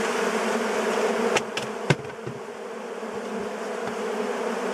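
Large mass of honeybees buzzing steadily all around, the bees agitated and out of control. A few sharp knocks cut through the buzzing about one and a half to two seconds in.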